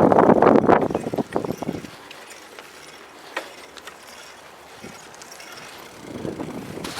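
Wind buffeting the microphone on a moving bicycle, dying down about two seconds in. What remains is the faint ticking of the bicycle's freewheel ratchet while coasting, before the wind noise rises again near the end.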